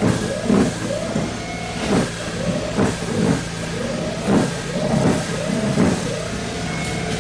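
Snow Joe iON18SB 40-volt cordless electric snow blower running and throwing snow. Its pitch swells and dips over and over, about every three quarters of a second, with a regular crunch at about the same pace.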